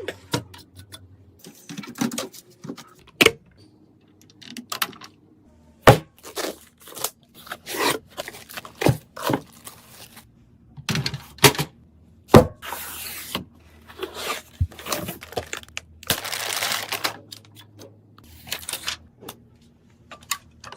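Irregular clicks, knocks and snaps of computer parts being handled and fitted together during a PC build, with a couple of longer rustles of plastic or packaging.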